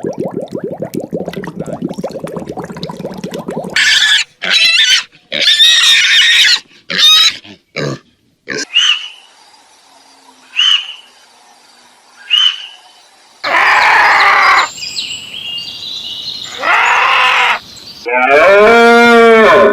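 A series of different recorded animal calls, one after another. First a low, rapidly pulsing sound for about four seconds, then several short loud cries, a few brief chirps about two seconds apart, and longer loud calls near the end.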